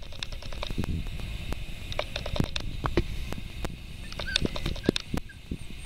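Schnauzer puppy's claws clicking on ceramic tile as it walks, in irregular clusters of sharp ticks.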